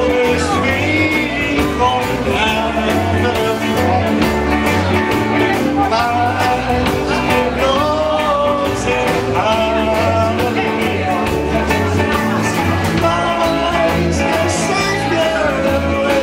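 A rock-and-roll style song: a singer's melody over a band with a steady, repeating bass line.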